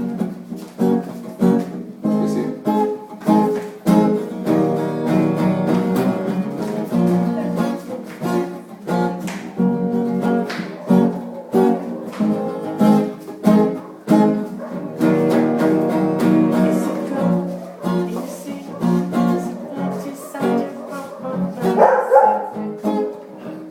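Plucked guitar music played live, with a dog barking along.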